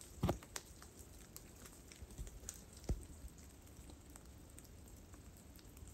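Drops of water falling from wet branches and tapping on leaves and the ground: sparse, irregular soft taps, two of them louder, about a quarter second in and near three seconds in.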